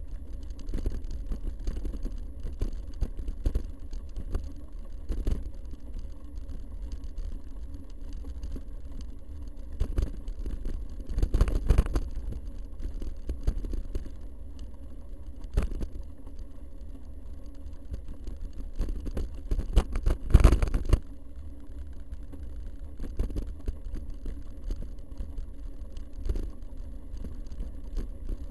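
Steady low wind rumble and jolting from an action camera carried along a rough dirt track, with knocks and rattles on the bumps; two louder bursts of rattling come about 11 and 20 seconds in.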